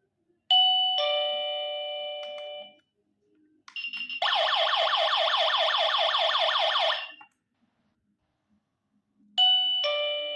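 C58 electronic doorbell chime sounding its tunes: a two-note ding-dong that rings out and fades over about two seconds, then about three seconds of a fast repeating electronic warble. Near the end the ding-dong starts again.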